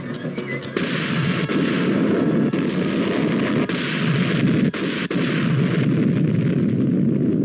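Explosion sound effect: a loud, long blast that sets in about a second in and runs on as a dense roar of noise, dipping briefly a few times.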